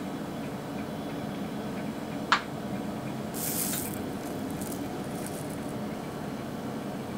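A short, sharp click, then tiny silver sugar pearls pouring from a small plastic bottle into a palm with a brief high, hissing rattle, followed by a few fainter rattles.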